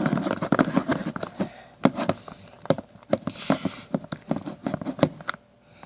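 A slime mixture being stirred in a bowl with a wooden popsicle stick: irregular sticky squelches and quick clicks of the stick. It quietens near the end.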